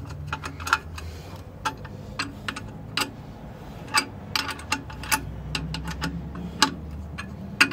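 Sharp metallic clicks of a spanner tightening the clamp nuts on a lathe faceplate, at irregular spacing with some quick runs, over a low steady hum.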